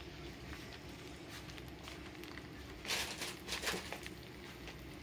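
Dry instant ramen noodles frying quietly in olive oil in a small cast-iron pot on a portable gas stove, with a faint steady sizzle and crackle. Two brief louder noises about three seconds in.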